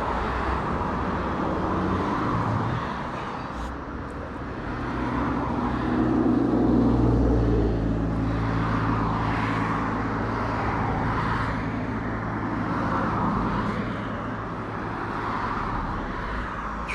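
Road traffic: motor vehicles passing, with a louder low engine rumble swelling and fading about six to eight seconds in.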